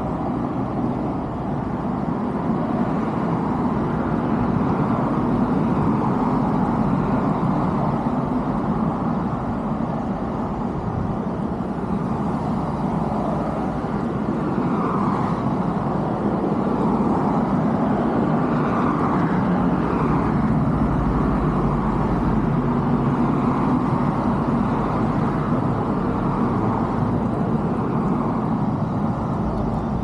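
Steady background road traffic: a continuous wash of car and truck noise that swells and eases slightly but never stops.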